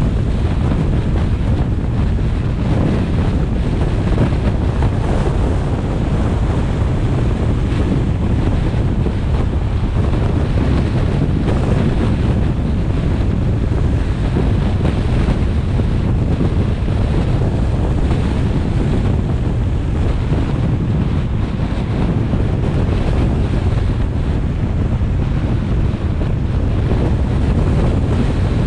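Steady wind noise on the microphone of a car-mounted GoPro, over the road and tyre rumble of the moving car.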